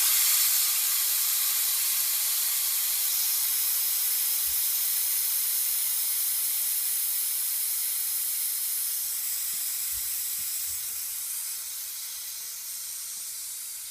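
Compressed air hissing out of the compressor's air tank. It starts suddenly and slowly fades as the tank pressure falls.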